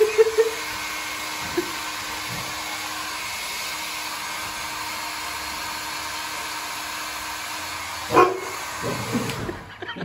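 Small handheld hair dryer blowing steadily, then switched off near the end. A Rottweiler puppy barks at it right at the start and again loudly about eight seconds in; the puppy is frightened of the dryer's sound.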